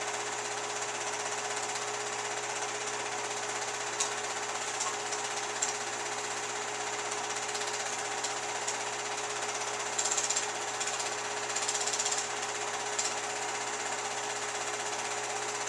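Home-movie film projector running: a steady mechanical clatter with a constant hum. A few brief clicks come about four seconds in, and short crackles come about ten to twelve seconds in.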